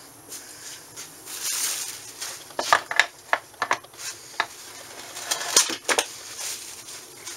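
Metal clicks and clinks as the bull gear of an opened Peerless MST transaxle is handled and set into its case among the other gears, with a short rubbing sound about a second in. The clicks come in a quick uneven run around the middle and a few more near the end.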